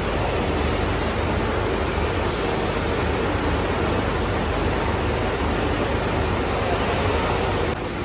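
Steady mechanical noise of a running continuous rotary-drum carbonization furnace, its gas burners and fans, with a faint high whine over it. The level drops slightly near the end.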